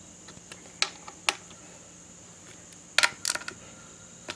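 A small ratcheting wrench clicking against metal as the oil-pump cover plate screws on an engine's crankcase cover are snugged down. Two single sharp clicks come about a second in, then a quick cluster of several clicks about three seconds in.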